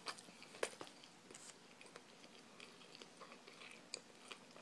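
Faint chewing of a mouthful of sushi roll, heard as soft, scattered mouth clicks, one slightly louder under a second in.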